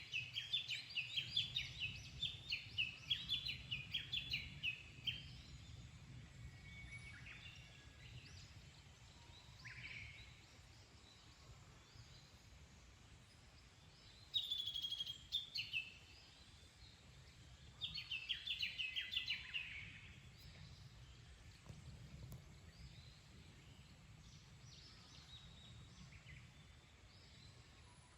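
Wild songbird singing in phrases of rapid repeated high notes: a long phrase of about five seconds at the start, then two shorter ones around the middle, with scattered fainter calls between. A low steady rumble runs underneath.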